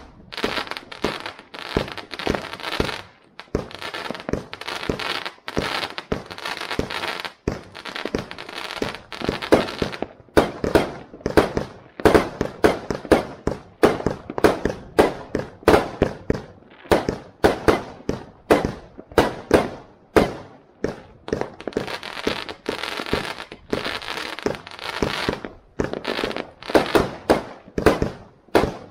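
Aerial fireworks bursting overhead in quick succession, a steady stream of sharp bangs at two or three a second, packed closest together from about ten seconds in.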